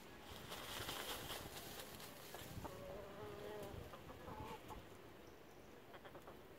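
Chickens clucking softly, a few short calls about halfway through, with a brief hissing noise about a second in.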